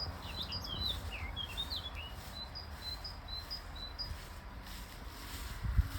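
Songbirds calling: a jumble of quick chirps for the first two seconds, then a series of short, evenly spaced notes, about three a second. Under them runs a low rumble, and a thump comes near the end.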